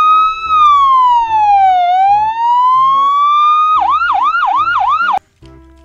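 Electronic ambulance siren: one slow wail that falls and rises again, then switches to a fast yelp of about four quick sweeps, and cuts off suddenly near the end.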